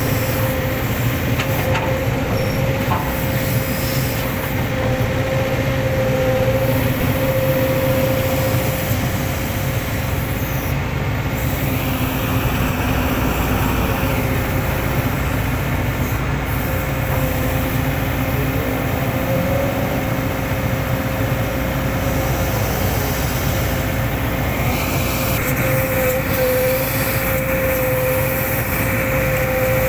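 Hitachi excavator's diesel engine running steadily, with a constant whine over the engine noise.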